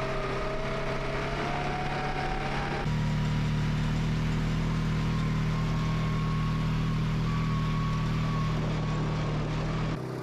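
A vehicle engine running steadily, its pitch creeping up slightly at first. About three seconds in it changes to a louder, deeper steady drone, which eases off near the end.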